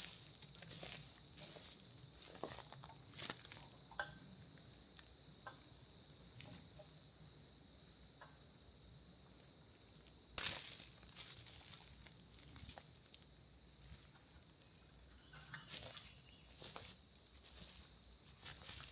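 Steady high-pitched insect chorus, with scattered rustling steps and small clicks and one sharper knock about ten seconds in.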